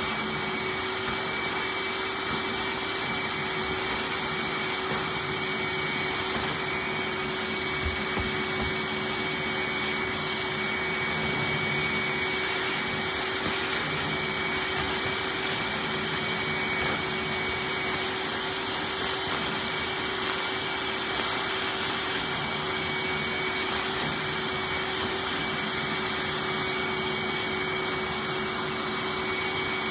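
Hoover wet/dry shop vac running steadily, a constant motor whine over the rush of air through its hose as it sucks dust out of a vacuum cleaner's pre-motor filter.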